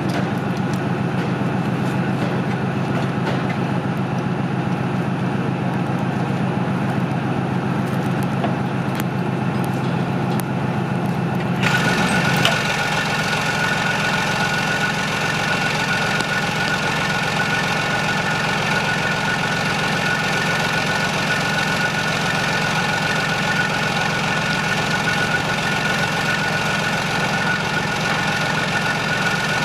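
An engine idling steadily. About twelve seconds in the sound changes abruptly to a different engine note with a steady high whine over it.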